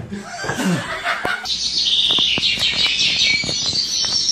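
Birds chirping: many quick, high chirps, beginning about a second and a half in. Before them there is a brief sound that slides down in pitch.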